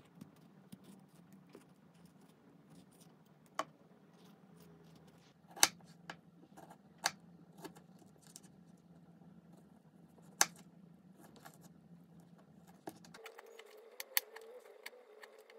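A knife slicing soft, over-ripe sweet persimmons on a plastic cutting board: scattered light clicks and taps of the blade against the board, with a few sharper knocks.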